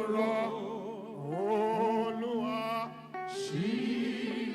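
Worship singing in Yoruba: a solo voice sings slow, drawn-out phrases with vibrato over held instrumental chords. The voice breaks off for a moment about three seconds in, then comes back.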